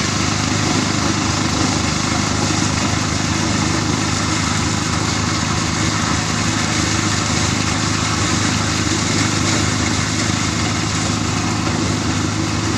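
Engine-driven threshing machine running steadily while crop is fed into it: a continuous engine drone with a rushing noise over it.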